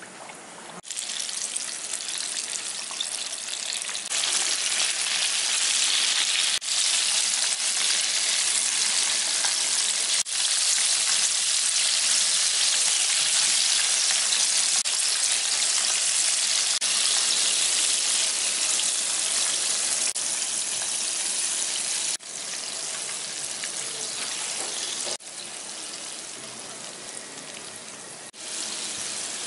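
Breaded chicken strips deep-frying in hot oil in a pot: a loud, steady sizzle and crackle of bubbling oil. The level jumps or drops abruptly several times.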